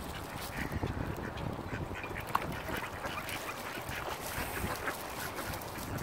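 Mallard ducks quacking in short, scattered calls over a low background hiss, with one brief sharper note about two and a half seconds in.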